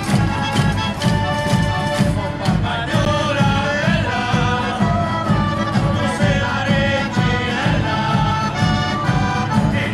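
Live Italian folk music from a costumed Abruzzo group: a steady drum beat of about two strokes a second under the instruments, with several voices singing together from about three seconds in.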